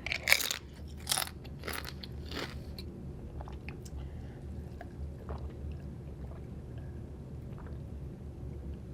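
Close-miked eating: four crisp crunching bites and chews in the first two and a half seconds, then quieter chewing with small mouth clicks. A steady low hum runs underneath.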